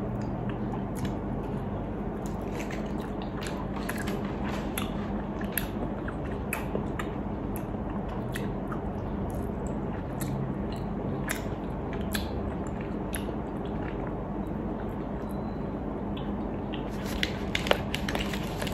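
Close-up chewing and mouth sounds of a person eating a soft, chewy matcha mochi: small scattered wet clicks over a steady low hum. Near the end a few louder clicks as a plastic tray is handled.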